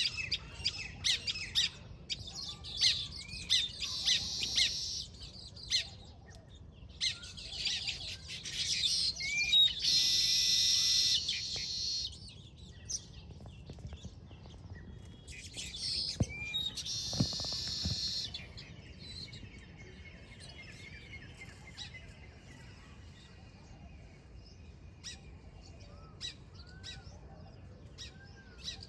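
Weaverbirds chattering and squawking, with many quick high chirps. Two loud, harsh rasping calls come about a third of the way in and again just past halfway, after which the calls thin out to scattered chirps.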